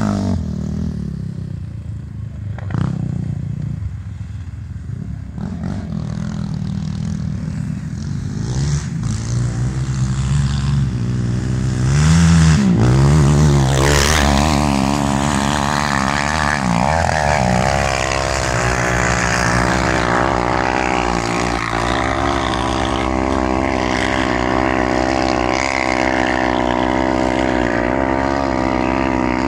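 Quad bike (ATV) engines running and revving, the pitch rising sharply about halfway through, then one engine held at steady high revs for the last dozen seconds, as with a quad climbing a sand dune.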